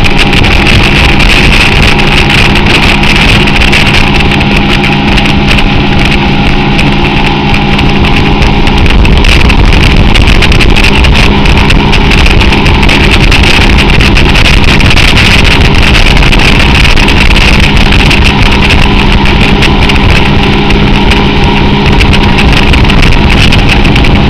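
Motorboat engine running steadily at speed while towing a tube, with a steady rushing noise over it.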